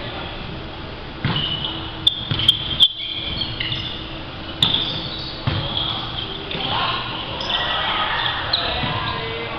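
An indoor volleyball rally in a large, echoing sports hall. The ball is struck with sharp smacks, three close together a couple of seconds in and another a little later. Sneakers squeak on the wooden court, and players' voices call out.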